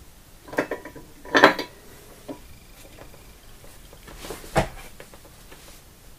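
Metal clinks and knocks from handling the soldering iron and the metal helping-hands tool: a cluster of short clinks in the first two seconds, the loudest about a second and a half in, and one sharper knock later on.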